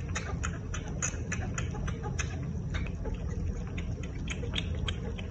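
A cat sucking milk from a small feeding bottle, making wet suckling clicks about four times a second over a steady low rumble.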